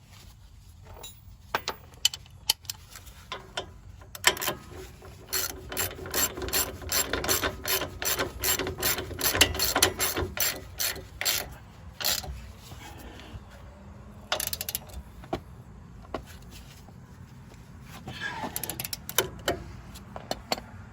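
Hand ratchet wrench clicking as a shock absorber's mounting nut is run down and tightened: a steady run of about four clicks a second through the middle, with scattered single clicks and knocks before and after.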